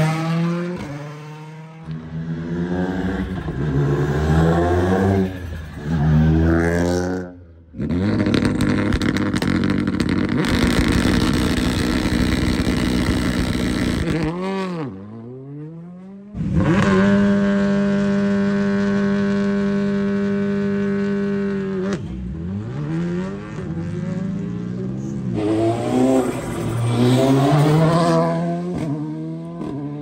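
World Rally Championship Rally1 cars' turbocharged four-cylinder engines accelerating hard through the gears, the revs climbing and dropping with each shift. Around the middle, a car holds its revs steady for several seconds on launch control at the stage start, then pulls away and climbs through the gears again.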